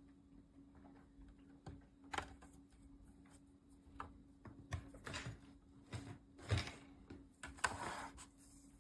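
Scattered light clicks and knocks over a faint steady hum.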